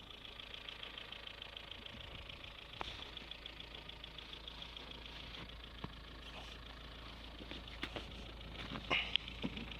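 Opel Vectra B 1.8 16V's four-cylinder petrol engine idling, with a fast, steady ticking. A few sharp knocks come through, the loudest about nine seconds in.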